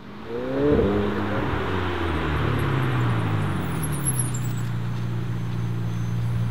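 McLaren 720S twin-turbo V8 at low speed: a short rev rising in pitch in the first second, then falling away and settling into a steady low engine note as the car rolls along.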